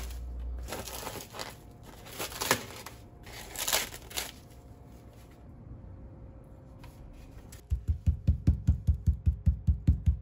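Crinkling and tearing in a few short bursts, then, about two seconds before the end, steady pounding begins: meat being beaten flat for milanesa cutlets, about four thuds a second.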